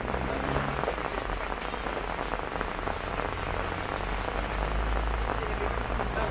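Steady hiss of heavy rain and running water, with a low rumble underneath.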